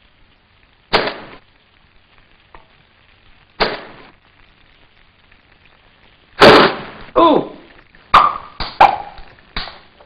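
Metal pans and kitchen utensils clattering. There are two sharp knocks a few seconds apart, then a quick run of five loud clanks, the loudest about six seconds in. One clank rings on with a wavering metallic tone.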